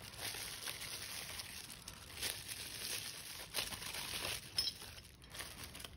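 Bubble wrap and plastic packaging crinkling and rustling as hands unwrap small parts, with a few sharper crackles.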